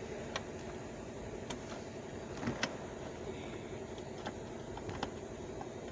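Several sharp clicks and light metallic taps from hand and tool work on the third mounting bolt of a car's airbag control unit, over a steady low hum.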